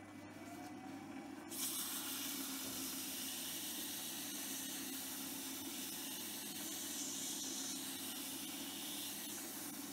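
Hobby lathe running with a low hum while a gloved hand holds an abrasive against the spinning knurled stainless-steel workpiece, giving a steady hiss that starts about one and a half seconds in.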